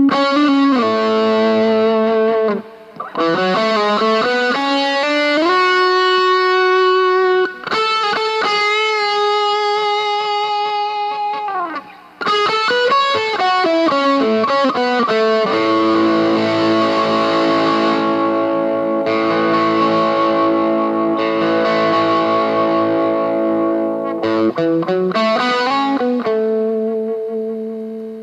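Fernandes TEJ-70 electric guitar played lead: sustained single notes with pitch bends and slides, broken by a few short pauses. About halfway through it moves to held, ringing chords.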